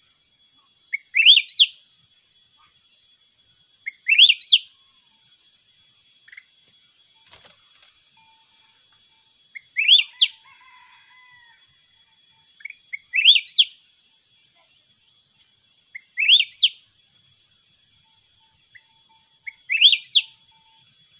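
Red-whiskered bulbul singing short, loud phrases of quick rising whistled notes, six times at intervals of about three seconds. A steady high insect drone runs underneath.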